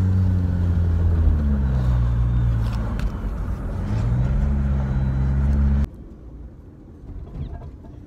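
Car engine and road noise heard from inside the cabin, the engine note dropping, then climbing again. It cuts off abruptly about six seconds in, leaving a much quieter background.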